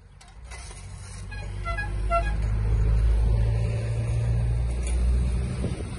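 A car passing close by on the road, its low engine and tyre rumble swelling over the first two seconds and easing off a little near the end.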